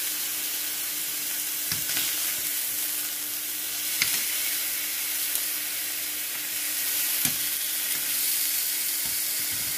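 Seasoned sheepshead fillets sizzling steadily in hot olive oil in a nonstick skillet, with a few sharp clicks of metal tongs against the pan as the fillets are turned.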